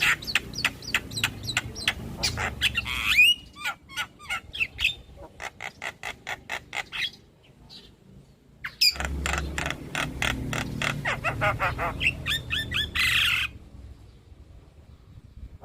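Javan myna calls: fast runs of sharp clicking notes broken by harsh squawks, with a brief lull about seven seconds in. This is lure song meant to prompt another myna to sing.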